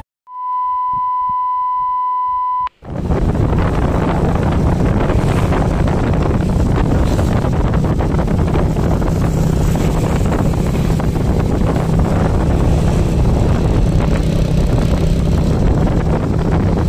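A steady electronic beep lasts about two seconds. From about three seconds in comes the steady noise of riding on a motorcycle: engine hum and wind buffeting the microphone.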